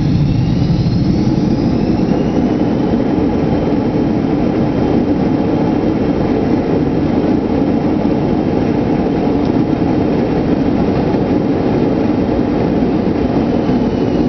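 Cabin noise in a McDonnell Douglas DC-9-30 rolling along the runway just after landing: a steady rumble from its two rear-mounted Pratt & Whitney JT8D jet engines and the rolling wheels. A faint whine rises in pitch over the first two seconds.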